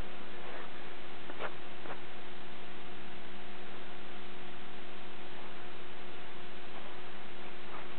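A steady hum of a few held tones over an even hiss, with a few faint short ticks: about half a second in, twice around a second and a half to two seconds, and once near the end.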